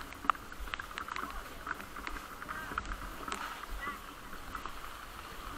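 Heavy rain dripping and splashing onto plastic stall awnings and a flooded walkway, with many irregular sharp drips over a steady wash of rain. Voices murmur in the background.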